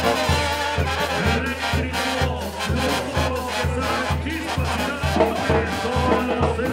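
Mexican banda music: trumpets and trombones playing over a steady bass beat of about two pulses a second.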